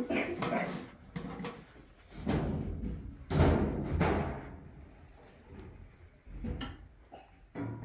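Irregular knocks and thuds, about half a dozen over several seconds, the loudest a little past the middle.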